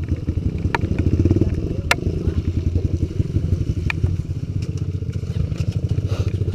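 Kawasaki KLX 150 trail bike's single-cylinder four-stroke engine running at low revs, its exhaust pulses steady and close, with a short rise in revs about a second in. Scattered sharp clicks and clatter sound over it.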